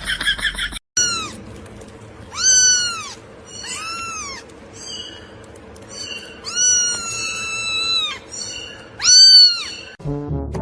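A cat meowing repeatedly: about five separate meows, each rising and then falling in pitch, with one longer, drawn-out meow in the middle.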